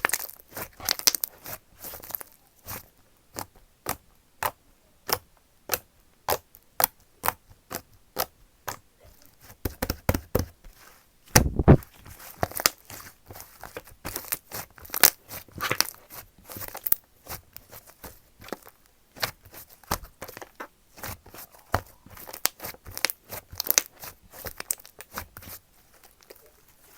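Slime being squeezed and poked by hand: irregular sticky clicks and popping air pockets, a few a second, with one louder, deeper pop about eleven seconds in.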